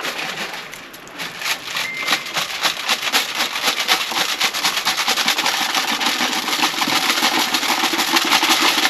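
Handheld duck call blown in a fast, chattering run of short notes that grows louder after about a second.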